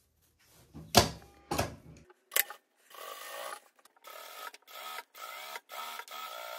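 Industrial straight-stitch sewing machine stitching bias binding onto fabric in short stop-start runs. A few sharp knocks come about a second in, before the stitching begins.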